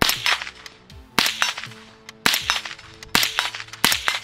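Five suppressed rifle shots, roughly one a second, from a short-barrelled 300 Blackout AR rifle firing 124-grain supersonic rounds through a HUXWRX Ventum 7.62 flow-through suppressor. Each shot is a sharp crack with a short echo after it. The crack comes from the supersonic bullets.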